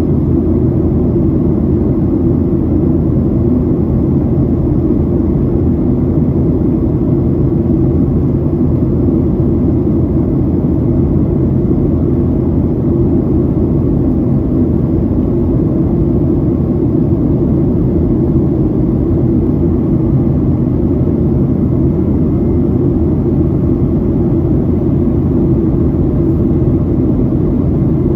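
Boeing 737-800 cabin in flight: the steady, unchanging low noise of its CFM56 jet engines and the airflow, heard from a window seat over the wing.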